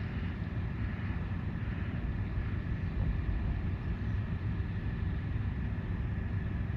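Repair machinery running: a steady low rumble with a faint high whine held over it.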